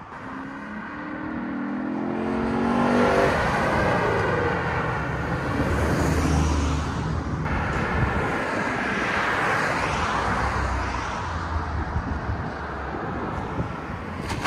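2015 Lexus RC F's 5.0-litre V8, running through Valvetronic Designs mufflers with the valves open, accelerating hard on a drive-off. The exhaust note climbs in pitch over the first few seconds, then stays loud with a deep rumble.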